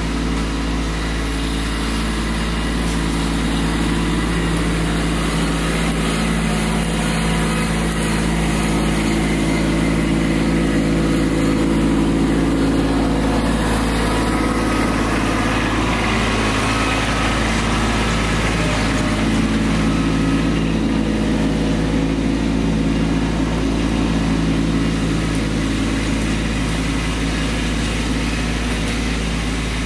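Kubota B2601 compact tractor's three-cylinder diesel engine running steadily as the tractor moves, a little louder about halfway through as it passes close.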